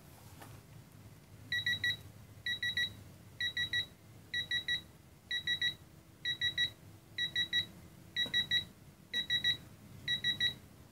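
Digital torque wrench adapter beeping: quick clusters of three or four high-pitched beeps, repeating about once a second from about a second and a half in. This is the alert that the set torque of 26 ft-lb has been reached on the swingarm axle nut.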